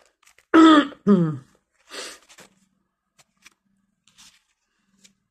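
A woman clears her throat: two short, loud voiced sounds about half a second in, the second falling in pitch, followed by a few soft, faint noises.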